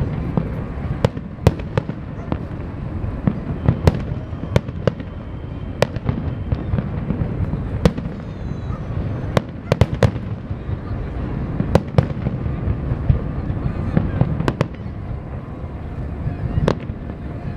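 Aerial fireworks shells bursting in quick, irregular succession: many sharp bangs over a continuous low rumble of more distant bursts.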